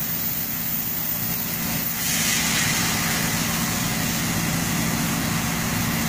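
Fire hose nozzle spraying a wide fog stream out through a doorway in hydraulic ventilation, a steady hiss of water that grows louder about two seconds in. Beneath it a pump engine hums steadily.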